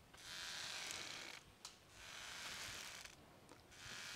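A rope swing creaking and rubbing faintly on each pass: a soft, scratchy swell about every two seconds, with near silence in between.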